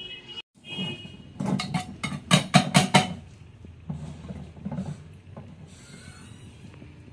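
Kitchen utensils clattering: a quick run of sharp knocks of metal on a pot or pan about a second and a half in, then fainter scattered taps.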